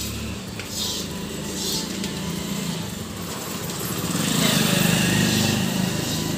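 A motor vehicle's engine running, growing louder about four seconds in as it passes close by, with a hiss above it.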